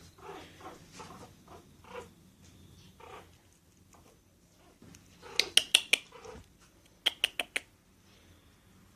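Pomeranian puppy making small soft whimpering sounds, then two quick runs of about five sharp, high-pitched yips each, a little past halfway and again about two-thirds of the way through.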